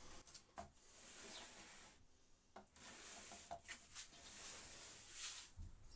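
Near silence, with faint rubbing and a few light knocks as a hand handles a wooden worktop panel.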